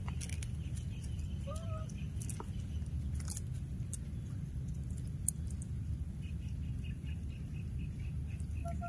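Outdoor background with a steady low rumble and a faint, short chirping call. A single sharp click a little past halfway, then a fast, even run of faint ticks, about five a second, near the end.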